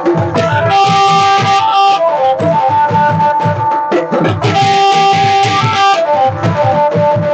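Dance music: a melody of held notes over a steady, fast drum beat.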